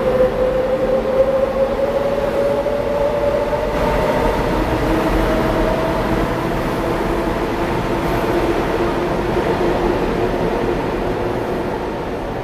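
Electric multiple-unit train pulling out along a station platform: a slowly rising motor whine over the steady rumble of the wheels on the rails, as it picks up speed. The sound fades near the end as the last car passes.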